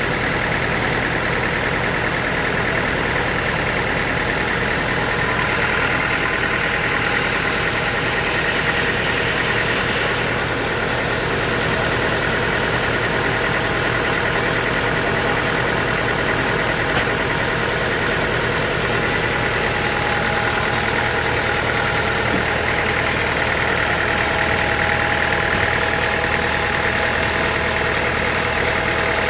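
Sawmill machinery running steadily, a continuous even mechanical drone with no breaks or changes in level.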